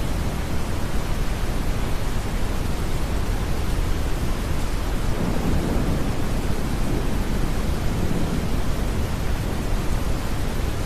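Steady, deep brown noise blended with rain hiss. A soft low rumble of distant thunder swells about five seconds in and fades out by about nine seconds.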